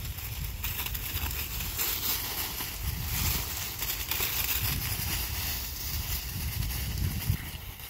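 Dry fallen leaves crunching and rustling as two puppies and a person run through them chasing a flirt-pole lure, with a low rumble underneath.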